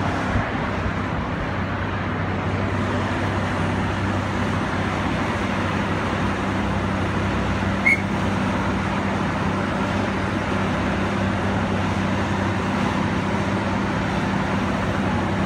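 Hunter-class diesel railcar standing with its engine idling: a steady low hum. A short high chirp about eight seconds in.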